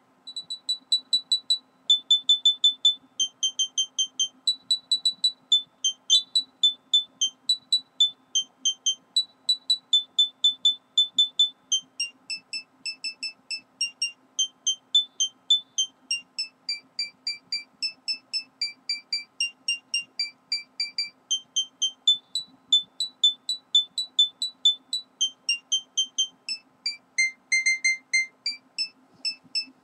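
Background music: a simple tune of short, high beeping notes, about three a second, starting a moment in, over a faint steady hum.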